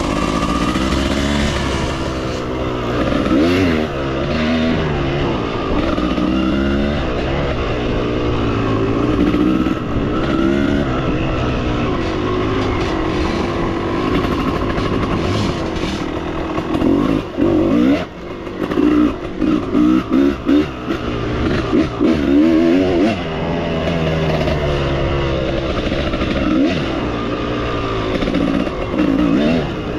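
Motorcycle engine revving up and down as the bike is ridden, its pitch rising and falling with each opening of the throttle. A little past halfway the throttle is cut and reopened several times in quick succession, the sound dropping out briefly between bursts.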